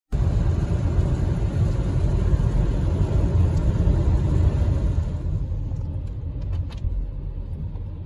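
Car driving on a wet highway, heard from inside the cabin: a dense rumble of road and tyre noise with the hiss of water spray. It grows quieter about five seconds in.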